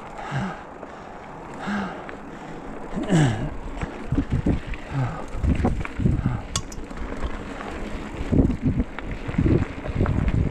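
Mountain bike riding a rough dirt trail, with irregular jolts and rattles from the bike over bumps and wind on the microphone; the knocking gets denser and harder from about four seconds in.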